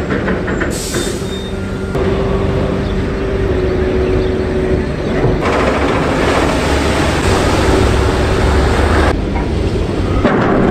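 Engines of M3 amphibious bridging vehicles running with a steady low rumble. The sound changes abruptly a few times, and there is a louder rushing stretch in the middle.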